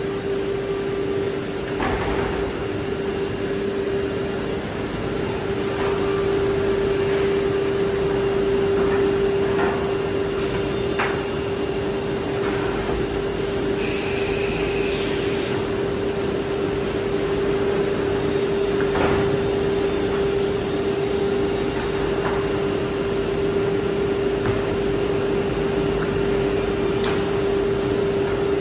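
CNC nesting machine line for cabinet panels running: a steady hum with a constant noise hiss, broken now and then by short clacks and knocks.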